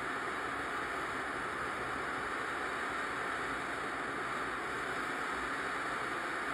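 Gas torch flame hissing steadily while heating a stainless steel joint for silver soldering.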